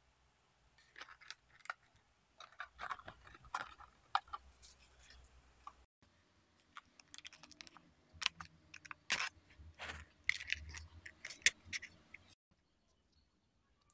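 Foil-and-paper lids of instant noodle cups crinkling and clicking as they are handled and pressed shut: a scatter of sharp crinkles and taps with short pauses, nearly silent near the end.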